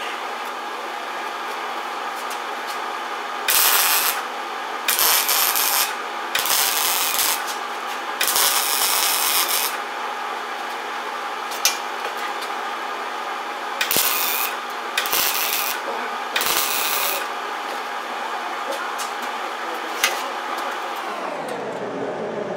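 Wire-feed welder laying short tack and stitch welds on thin sheet-steel rust repair panels: about seven separate crackling hisses, each under a second to about a second long, bunched in two groups. The welds go on slowly so the panel only warms up. A steady hum runs underneath and stops shortly before the end.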